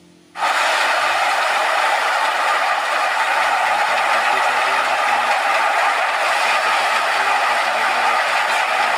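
Malwa grain thresher running at work, a loud, steady, even noise of the machine threshing as grain pours from its outlet. It cuts in abruptly about half a second in.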